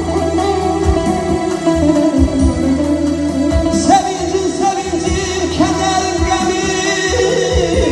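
A man singing into a handheld microphone over amplified instrumental backing with a low, regular beat; his voice comes forward from about four seconds in.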